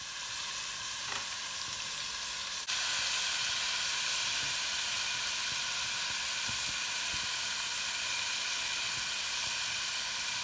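Chunks of raw meat sizzling in hot oil with fried onion and garlic in a nonstick frying pan, a steady hiss that jumps louder a little under three seconds in.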